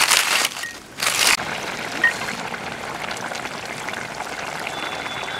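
Climbing perch and bean curry simmering in a pot over the fire, a steady bubbling hiss that settles in after a couple of short rustling bursts in the first second and a half.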